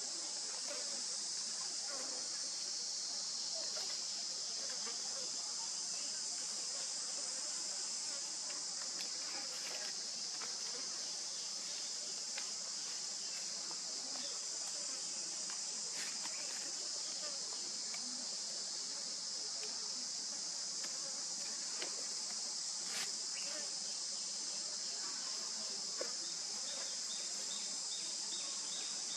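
Steady insect chorus, a continuous high-pitched hiss, with a few faint clicks scattered through it.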